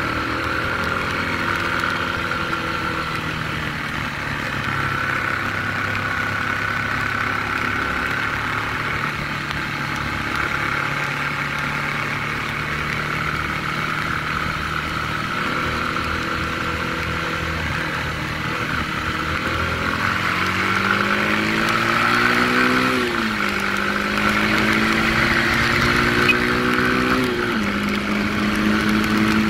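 Small single-cylinder Yamaha 150 cc motorcycle engine running at road speed, heard from the rider's seat over a steady rushing noise. About two-thirds of the way through, it revs up and drops at a gear change, then revs up again and drops at another upshift near the end.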